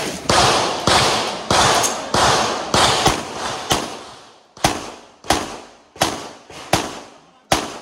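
Pistol shots fired in a steady string during a practical shooting course of fire, about a dozen in all at roughly three shots every two seconds, each followed by a short echo.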